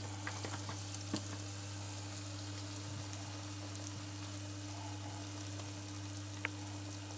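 Egg-coated bread rolls frying in hot oil in a pan: a steady sizzle with small scattered pops and crackles, over a steady low hum.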